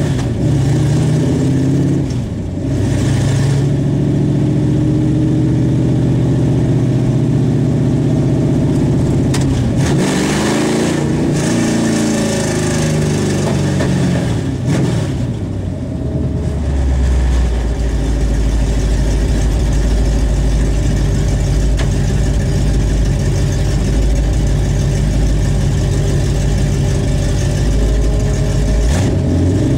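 A 355 small-block V8 with Vortec heads, heard from inside the cabin of a 1979 Chevrolet Malibu, with the engine pitch falling and rising as the car is driven at low speed. From a little past halfway it settles into a steady, deep idle.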